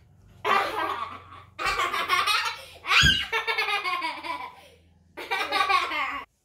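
A young child laughing hard in four long bouts, with a sharp rising squeal about three seconds in.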